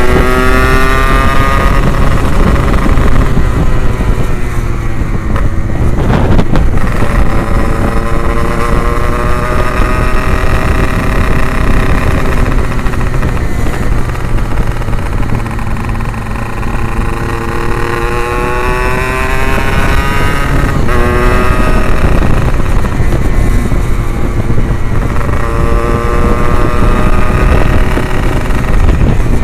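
Yamaha RX-King 135cc two-stroke single-cylinder motorcycle being ridden through an aftermarket Abbox C20 exhaust. The engine note climbs as it revs up and drops at each gear change, several times over. Two brief knocks come about six and twenty seconds in.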